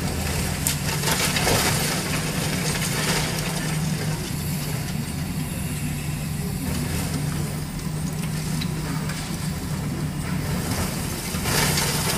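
Long-reach demolition excavator's diesel engine running steadily as its attachment breaks into a concrete apartment block, with crunching of concrete and rubble falling a few times, most strongly near the start and near the end.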